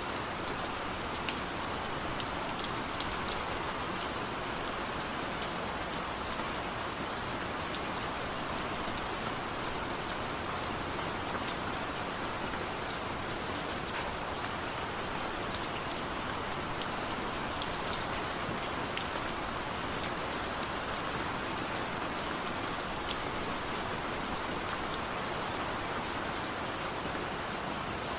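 Steady rainfall as an even, unbroken hiss, with scattered sharper drop ticks over it.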